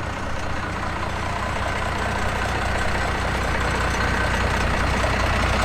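A vehicle engine running with a steady low drone and road-like noise, slowly getting louder.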